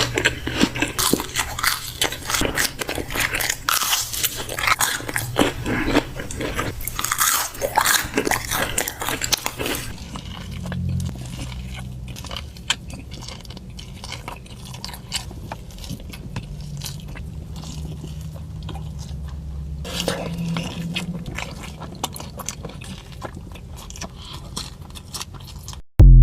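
Close-miked eating of McDonald's fast food: crunchy bites and chewing, crispest in the first ten seconds, with the sound changing twice as one eating clip cuts to another. A brief loud burst comes at the very end.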